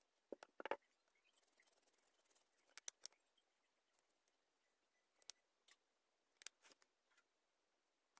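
Faint paper-craft handling: a few short clicks and taps, with a brief soft crackle of paper about a second in, as torn newspaper scraps are pressed onto glued paper with a plastic tool tip.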